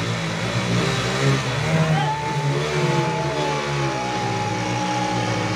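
Two 100cc single-cylinder commuter motorcycle engines revving hard under load as the bikes pull against each other in a tug-of-war, with voices shouting over them.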